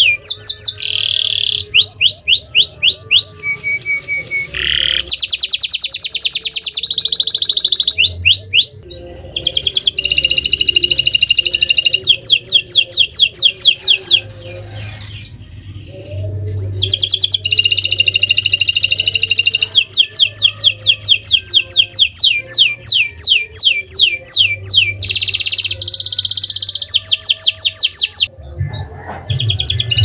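Domestic canary singing continuously in fast trills: long runs of quickly repeated rising notes, one phrase after another. There are short breaks about nine seconds in and near the end, and a longer one of about two seconds around the middle.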